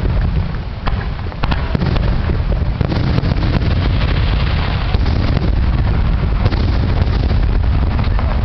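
Aerial fireworks going off in a dense, continuous barrage: many overlapping bangs and crackles over a steady low rumble.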